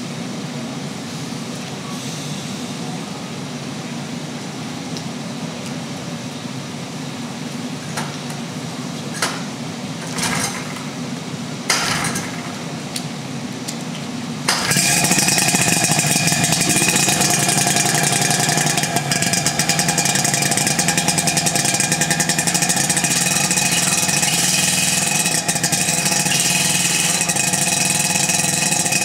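Battery-equipped Tohatsu V38CS portable fire pump: after a steady low hum and a few clicks, its engine starts abruptly about halfway through and then runs steadily at speed, driving the pump to throw a water jet from the nozzle.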